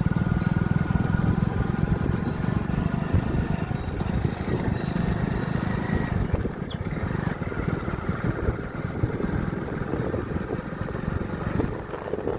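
Motorcycle engine running steadily under way, with road and wind noise; it eases off a little about halfway through.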